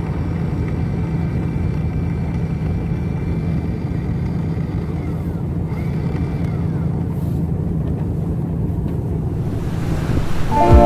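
Electric deck capstan (windlass) on a boat's bow running while its push-button is held, a steady low motor hum.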